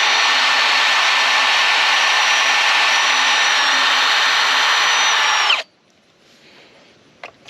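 High-speed power tool running loud and steady at one pitch, switched off about five and a half seconds in, its whine dropping as it stops.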